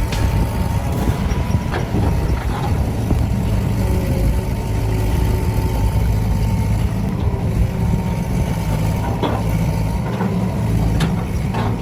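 A heavy vehicle's engine running steadily, with a few clicks and knocks.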